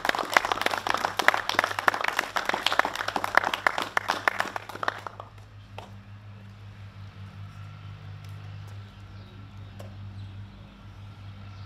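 A small group of people clapping, a dense patter of hand claps that stops about five seconds in. A steady low hum remains after it.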